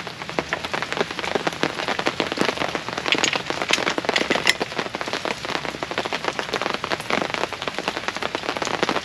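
Hard, steady rain falling on a fabric canopy overhead: a dense, continuous patter of drops, with a few louder single drops standing out.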